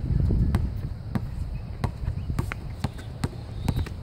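Basketball bouncing on an outdoor hard court, heard as irregular sharp thuds a few times a second.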